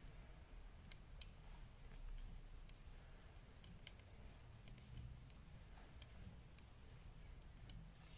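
Faint, irregular clicks of metal-tipped knitting needles touching as stitches are knitted, about a dozen over several seconds, over a low room hum.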